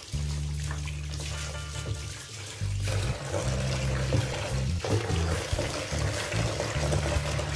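Water running from a shower hose and splashing into a paint tray as a paint roller is rinsed of yellow paint under it, with background music playing over it.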